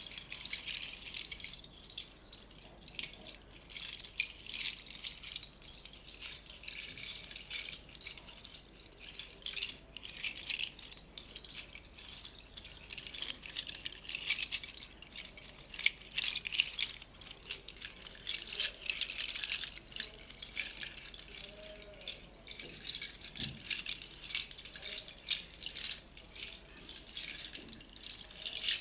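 Bead-filled hand percussion being shaken: a dense stream of small clicks that swells and fades every few seconds, in a slow meditative sound-bath style.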